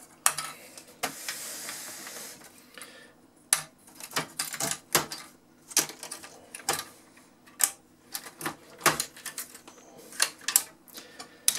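Irregular sharp plastic clicks and knocks of cable connectors and ribbon cables being unplugged and handled inside an open cassette deck chassis, with a brief rustling scrape about a second in.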